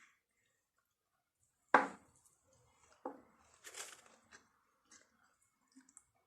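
Eating hot chicken wings: scattered wet chewing, tearing and smacking sounds, with one sharp knock a little under two seconds in as the loudest sound.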